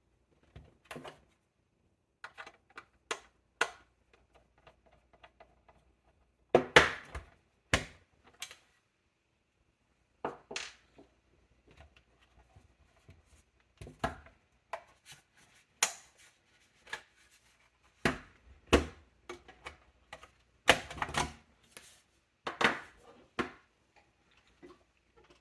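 Irregular clicks, taps and knocks of a Lenovo M910q tiny desktop's metal and plastic case and parts being handled and opened by hand.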